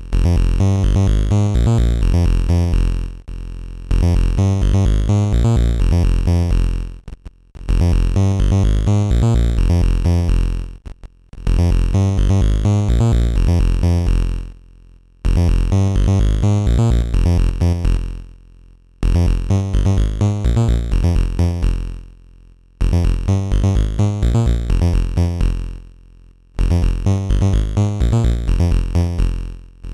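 An Amiga OctaMED synth instrument plays a looping pattern of quick, bass-heavy repeated notes. Each pass of about four seconds fades away and breaks off into a short silence before restarting, its volume shaped by a hand-drawn volume envelope that is being redrawn as it plays.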